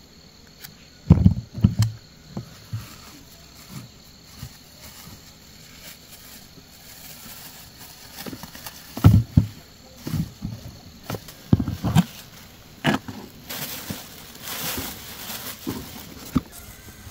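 Handling noise: scattered dull knocks and bumps as cobs of boiled corn and a basket are handled, with a plastic bag rustling for a couple of seconds about two-thirds of the way through. A steady high insect drone, typical of crickets, runs underneath.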